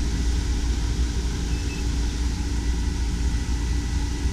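Self-contained marine air conditioner running steadily, its compressor and blower giving a constant low rumble and hum.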